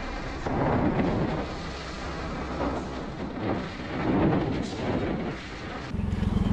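Wind buffeting a motorcycle-mounted action camera's built-in microphone while riding, rising and falling in gusts, with the motorcycle's engine running underneath. Near the end a louder, low, rapidly pulsing engine sound comes in.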